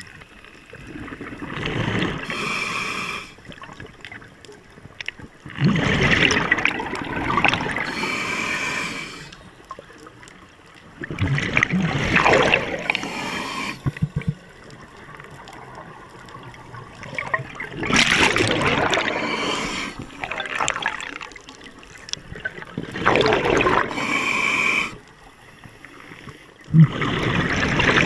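Scuba diver breathing through a regulator underwater: about five breaths, one every five to six seconds, each a burst of bubbling exhaust and a hissing draw on the regulator.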